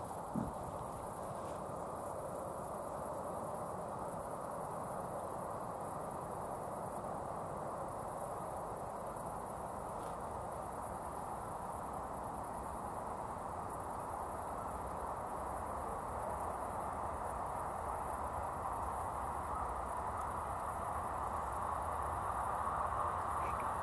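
Field insects (crickets or grasshoppers) chirping in a high, evenly pulsing trill, over a low rushing noise that slowly grows louder toward the end. A short sharp knock about half a second in is the loudest single sound.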